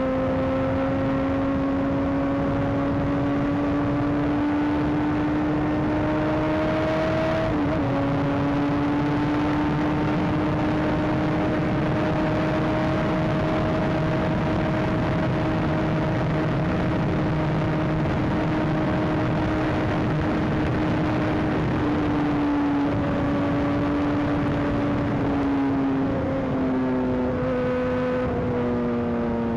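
Honda CBR600 inline-four engine running at a steady cruise under a constant rush of wind, its note slowly rising, with a brief blip about seven seconds in. Near the end the pitch falls as the bike slows.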